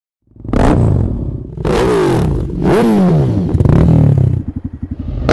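Motorcycle engine revved three times, its pitch rising and falling with each blip, then dropping back to a lumpy, pulsing idle.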